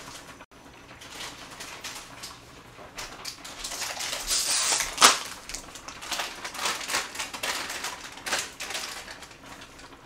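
Kitchen handling noises at the counter: irregular clicks and rustles, a hiss that swells a few seconds in, and one sharp click about five seconds in.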